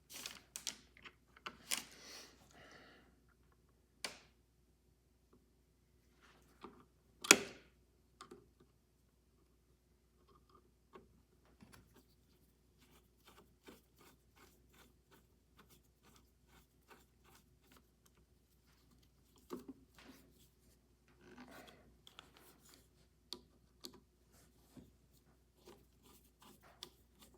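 Small metal clicks, taps and scrapes as the stepped screws holding the ratchet pawl are fitted and driven into an Edison Diamond Disc phonograph's spring-motor frame. There is one sharp knock about seven seconds in, and a long run of light, rapid ticking in the second half.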